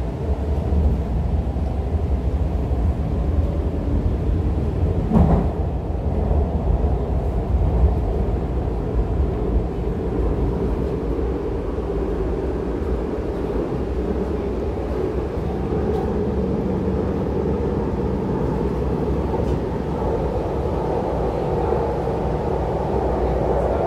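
MTR C-Train metro car running on the line, heard from inside the passenger car: a steady rumble of wheels on rail and running gear. There is one brief knock about five seconds in.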